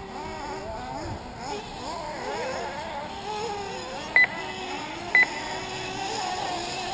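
Several 1/8-scale nitro buggy engines whining as they rev up and down around the track, their pitches gliding and overlapping. Two loud, short electronic beeps about a second apart near the middle.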